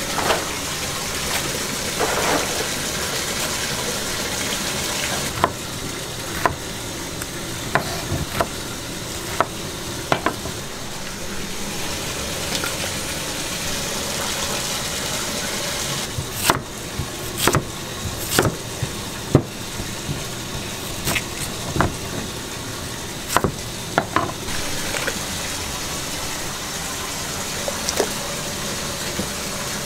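Water running into a large stock pot of dried anchovies and kelp, splashing on the surface. Short knocks and splashes come again and again as onion pieces are dropped in and the metal pots clank.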